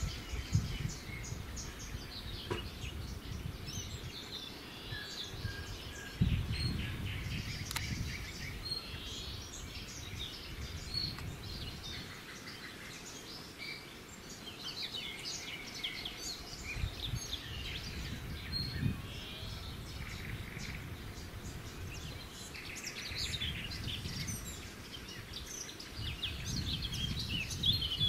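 Small songbirds chirping and twittering in many short calls and trills throughout, over a steady low background noise.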